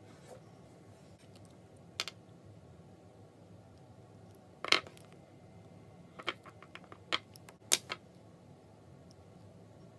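Scattered sharp clicks and taps of small hard plastic craft items, a pen and a toy dog figurine, knocking on a wooden tabletop while modelling clay is shaped: one tap about two seconds in, a louder one near the middle, and a quick cluster near the end. A faint steady room hum lies under them.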